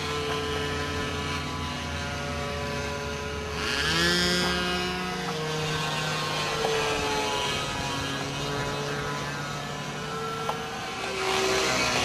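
Engine of a radio-controlled model airplane buzzing in flight overhead. Its pitch shifts with throttle and distance, rising and getting louder about four seconds in and again near the end as the plane comes closer.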